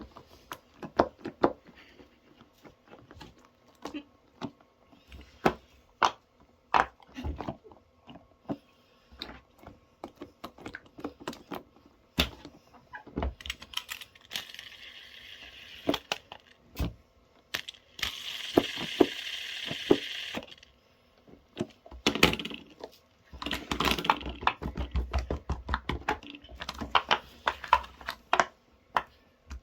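Hands handling small plastic and silicone fidget toys: scattered clicks and taps, with two spells of rustling around the middle and a quick run of tapping near the end.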